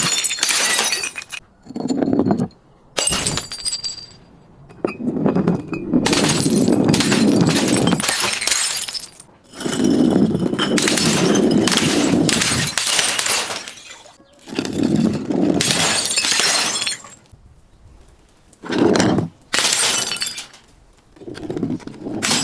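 Glass being crushed and shattering in a series of loud crunching bursts, some lasting several seconds, with shards tinkling.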